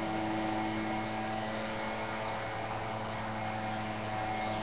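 Steady electrical hum with several held tones, unchanging throughout.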